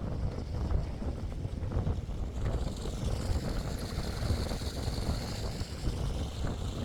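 Strong wind buffeting the phone microphone, a low rumble that gusts up and down; a higher hiss joins it about three seconds in.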